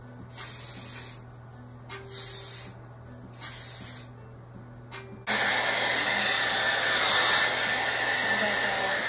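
Three short hisses from an aerosol spray can, about a second and a half apart, as spray is put on a wig cap. About five seconds in, a hair dryer starts running steadily, with a thin whine over its rush of air.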